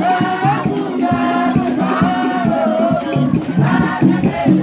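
A choir of many voices singing together over a steady rhythmic beat with rattles, a higher held melodic line wavering above the group.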